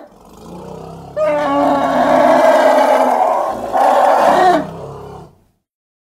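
Elephant roar sound effect. A quieter low rumble builds into a long, loud pitched bellow about a second in, swells again with a shorter call near the middle, then fades out a little after five seconds.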